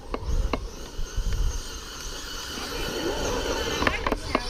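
Radio-controlled model car running on a sandy dirt track, its tyres scrabbling over sand and grit, with wind rumbling on the microphone and a few sharp clicks.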